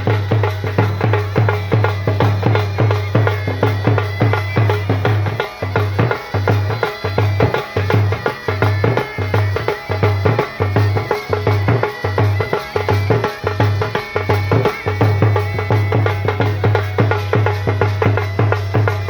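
Band baja playing loud, drum-driven music, with a steady deep beat about twice a second under fast drumming.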